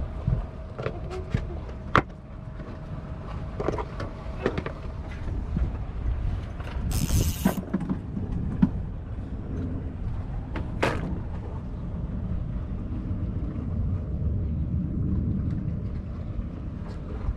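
Wind on the microphone aboard a small fishing boat, with a steady low rumble, scattered sharp knocks and clicks, and a brief hiss about seven seconds in.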